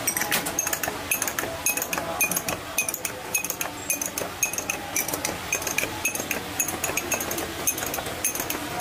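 A metal spoon clinking against small glass tumblers of chai as the tea is stirred one glass after another: quick, light ringing clinks, several a second.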